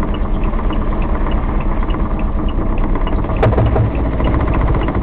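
Kubota 400 two-cylinder diesel of an Aixam Mega microcar idling, heard from inside the cab, with a light tick about four times a second. A sharp click about three and a half seconds in.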